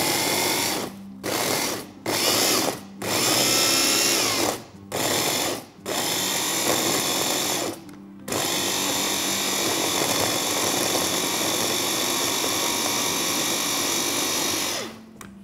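Kenwood 450-watt electric mini chopper grinding biscuits into crumbs. It is pulsed in about six short bursts, then runs without a break for about seven seconds until the crumbs are fine.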